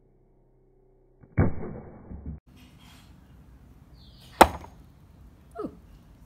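Hammer striking a whole coconut on a cloth-covered wooden chopping board to crack its shell: two sharp blows about three seconds apart, the second the loudest, then a lighter knock near the end.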